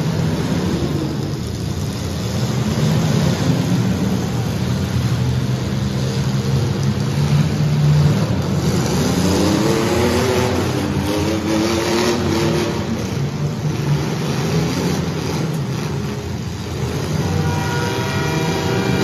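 Demolition derby car engines running hard and revving, their pitch sweeping up and down several times around the middle. A steady horn-like tone starts near the end.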